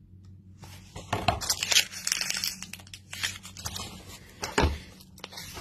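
Paper crinkling and rustling in the hands, a run of crackly bursts lasting about four seconds.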